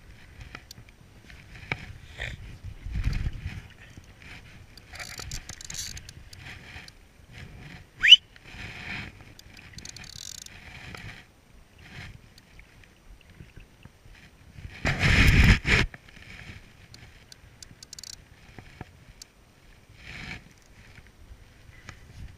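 Shallow sea water sloshing and lapping around a wading angler's legs, with scattered small knocks from handling the spinning rod and reel. A brief rising whistle about eight seconds in, and a louder rushing burst around fifteen seconds in.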